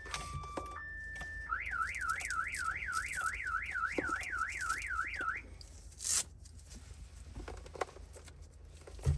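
Honda car alarm siren sounding: a two-tone hi-lo pattern that switches to a rapid up-and-down warble, about three and a half sweeps a second, then cuts off about five seconds in. The triggered alarm is what the locksmith suspects is blocking the key programming. A sharp click follows a second later.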